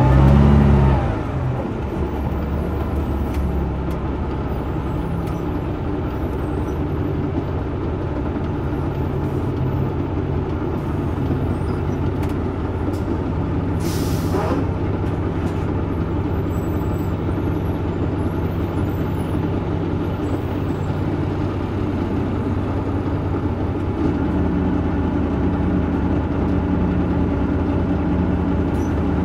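Cummins LT10 diesel engine of a Leyland Olympian double-decker bus, heard from on board, running steadily under way. It is loudest in the first second, and its note rises again about five seconds before the end. About halfway through there is a brief hiss of released air.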